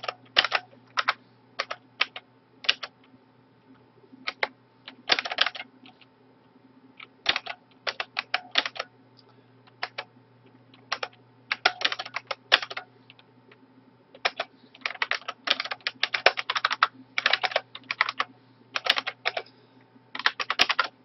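Typing on a computer keyboard: irregular runs of quick keystrokes broken by short pauses.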